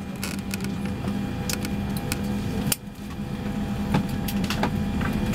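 Boeing 767 cabin ambience before departure: a steady low hum from the aircraft's systems, with several sharp clicks and knocks from around the cabin.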